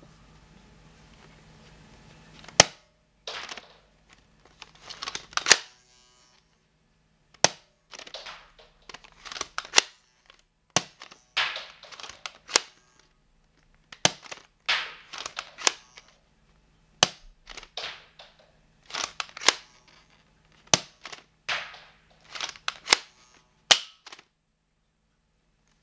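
Mega Bloks Skylanders Giants Trigger Happy toy dart blaster being cocked and fired over and over: a series of sharp snaps, one per shot, with short rattling, scraping cocking strokes between them.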